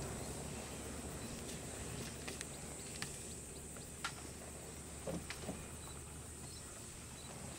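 Quiet open-air ambience: a steady high hiss and a faint low hum, with about a dozen short, scattered clicks.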